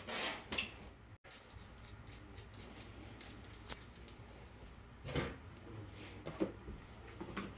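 Faint handling sounds of a coaxial cable and its connector being worked by hand, with a few small clicks and rustles and a tool shifted on the desk.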